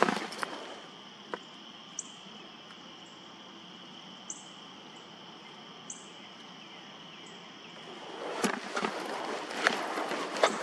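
A steady, high-pitched insect chorus, like crickets trilling, with a few short, very high chirps. About eight seconds in, louder noise with several sharp knocks rises over it.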